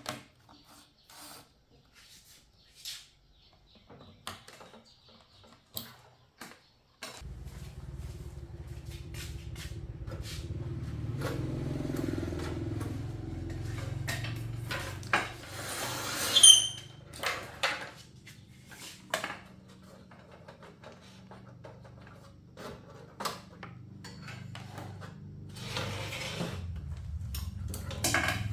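Small metal clicks and clinks of tools and parts being handled, with a steady low hum that comes on suddenly about seven seconds in and runs beneath them.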